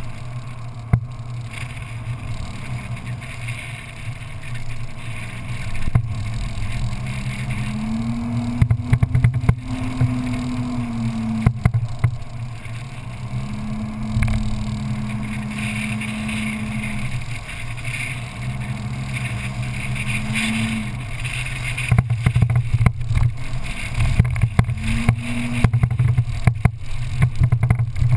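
Off-road vehicle engine running while driving on a sand track, its pitch rising, holding and dropping several times with the throttle over a steady low rumble. Sharp knocks come in clusters near the middle and toward the end, as the vehicle jolts over the rough track.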